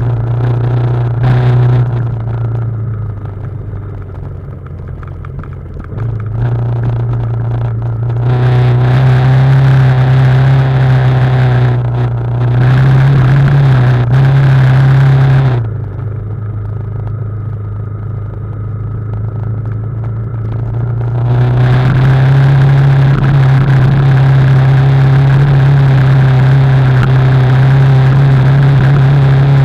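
BMW G 310 GS single-cylinder engine running while descending a trail, its steady note getting louder twice, together with a rushing hiss, about a quarter of the way in and again about two-thirds of the way in, and easing off in between.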